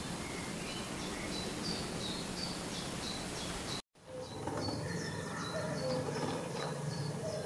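Birds singing: one repeats a short high note over and over, over a steady hiss. The sound drops out abruptly for a moment about four seconds in, then high repeated notes go on together with lower calls.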